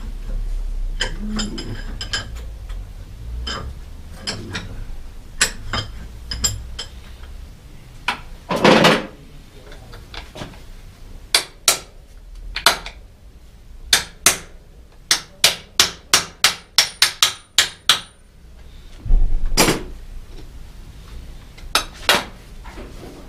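Hand tools knocking and clicking on a bicycle's metal parts while its saddle is fitted. There are scattered sharp knocks at first, then a quick run of about ten even taps around the middle, and a few more clicks near the end.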